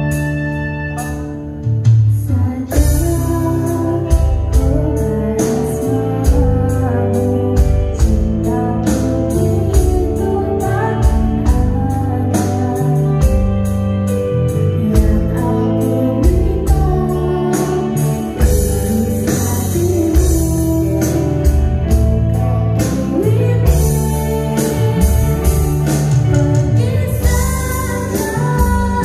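Live band music with a girl singing into a microphone. Sustained organ-like keyboard chords give way about two seconds in to the full band: an electronic drum kit keeping a steady beat and a five-string electric bass played through an amplifier.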